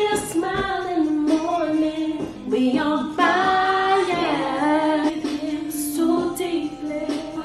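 Background song with a woman singing sustained, gliding notes over the accompaniment.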